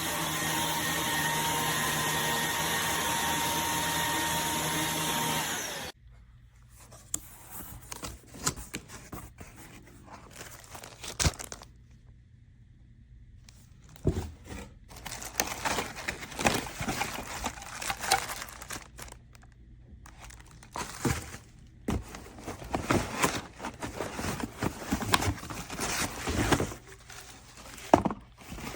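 Iirios cordless stick vacuum running with a steady whine, then switched off about six seconds in. After that come scattered knocks, clicks and rustles of handling.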